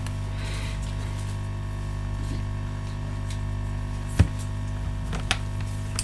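Steady electrical mains hum with evenly spaced overtones, and a single sharp click about four seconds in followed by a few faint ticks.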